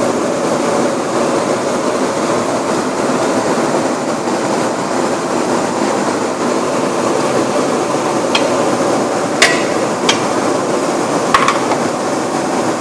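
Steady roar of gas stove burners under large metal cooking pots, with a few sharp metallic knocks of a ladle against the rice pot in the second half.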